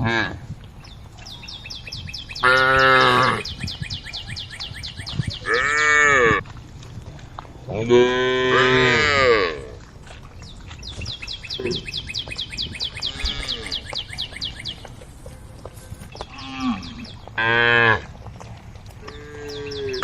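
Cows mooing repeatedly, about six calls of one to two seconds each, several rising and then falling in pitch: cattle calling to the herd.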